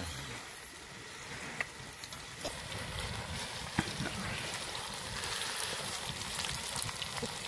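Cauliflower pakoras deep-frying in hot oil in a wok, a steady sizzle that grows a little about two seconds in, with a few sharp clicks.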